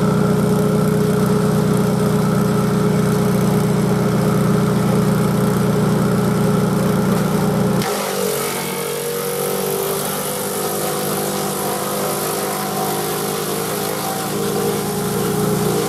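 A walk-behind tractor's 18 hp Vanguard engine running steadily while it drives a Caravaggi BIO 150 chipper shredder. About eight seconds in, the sound changes abruptly: the deep hum drops away and a higher hiss with shifting tones takes over.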